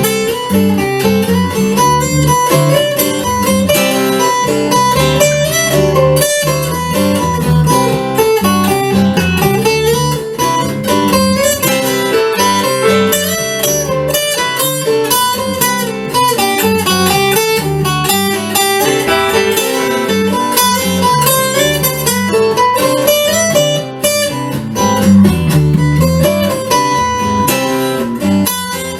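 Acoustic guitar strumming and picking a song without singing, a steady instrumental passage.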